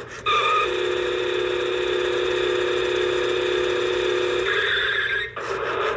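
Battery-powered Road Rippers toy PT Cruiser's electronic engine sound effect from its small speaker: a steady buzzing drone lasting about five seconds, then a brief rapid rattle near the end.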